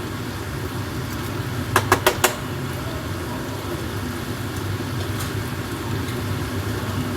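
Steady low hum of a running kitchen appliance, with about four sharp clicks in quick succession about two seconds in, as dishes are handled while food is dished up.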